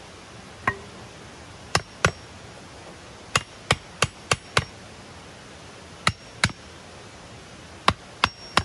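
Hatchet striking the top of a forked wooden stake, driving it into the ground: sharp wooden knocks in quick groups of two to five, about a dozen in all, some with a faint metallic ring.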